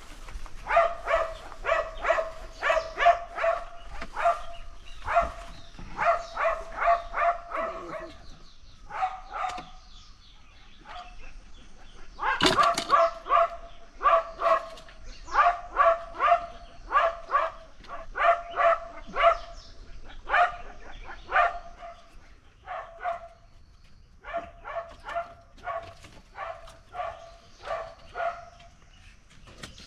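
A dog barking over and over in quick runs of about three barks a second, broken by short pauses, with one louder, longer bark near the middle.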